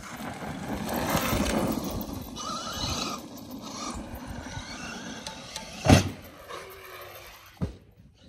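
Traxxas Maxx electric RC monster truck running on dirt: its brushless motor whines and its tyres rush over the ground as it passes close. A loud thump comes about six seconds in, and a smaller knock follows a little later.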